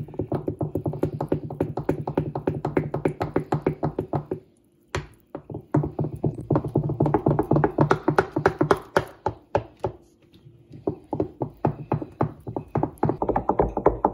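Wooden spoon beating thin crêpe batter in a glass bowl: fast, rhythmic slapping and tapping strokes, about seven a second, stopping briefly twice.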